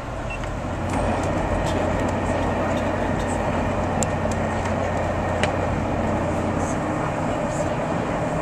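VIA Rail passenger train running through a rock tunnel: a steady rumble of wheels on rail with a low hum, which grows louder about a second in as the train enters the tunnel. A couple of sharp clicks come through the rumble.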